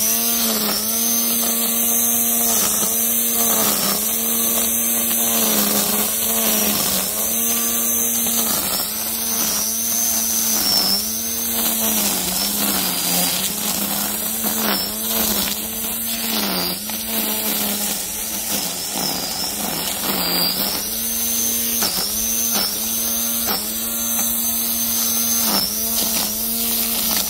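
Wild Badger Power 40V brushed cordless string trimmer running and cutting grass and weeds. Its motor whine dips in pitch and recovers every second or two as the spinning line bites into the growth, over a steady swishing hiss.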